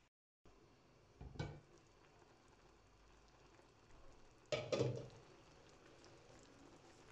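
Beef simmering in its own juices in a pan, a faint steady bubbling. A short knock comes about a second in, and a louder clatter of cookware about four and a half seconds in.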